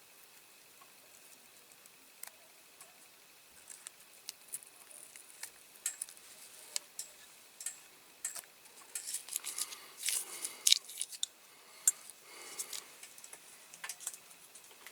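Small sharp clicks, taps and short rustling scrapes of hands working masking tape and small tools on a diecast model, sparse at first and busier and louder from about nine seconds in.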